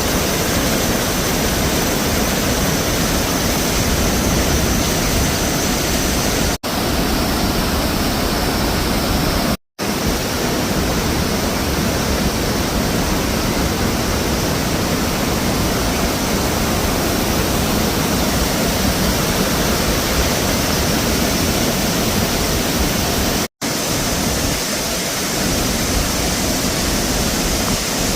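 A waterfall in spate after heavy rain: a loud, steady rush of falling water. The sound drops out briefly to silence three times.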